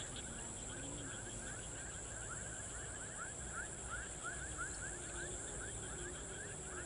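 Insect chorus in wetland vegetation: a steady high-pitched buzz with a fast run of short rising chirps, about three a second, and no other sound standing out.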